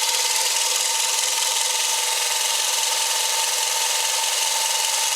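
Small belt sander running with a workpiece pressed against the belt: a steady, loud abrasive rasp over a constant motor whine.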